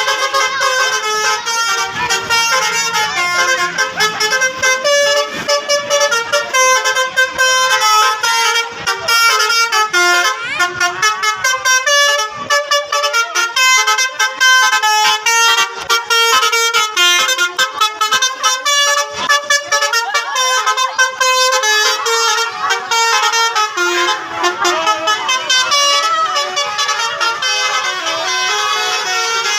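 A bus's telolet horn, a multi-tone musical air horn, playing fast tunes: short notes step up and down in pitch one after another without a break.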